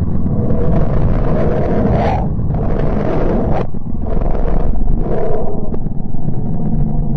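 Space 'sound' presented as that of the planet Mercury, a sonified recording: a steady low rumble with about four noisy surges, each about a second long, that sounds like a growl.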